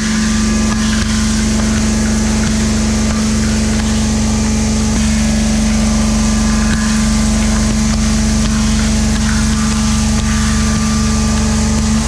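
Indexable high-feed face mill cutting steel in a CNC machining center, giving a loud, steady singing tone at one pitch from the inserts striking the work, with a hiss of chips over it.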